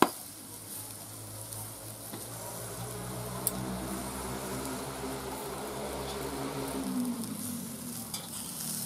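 Sausages sizzling on a charcoal kettle grill while metal tongs clink on the grate, sharpest right at the start, with a few lighter clicks later. A low droning hum rises under the sizzle and drops away about seven seconds in.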